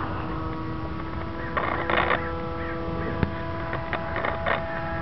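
Whine of a Bixler RC plane's electric motor in flight, a steady whine of several tones. Two brief rushes of noise break in, about two seconds in and again near the end.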